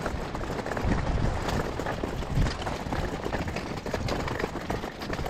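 Loaded pull-along gear wagon rolling and rattling over a rough dirt trail, with many small clicks and irregular low thuds.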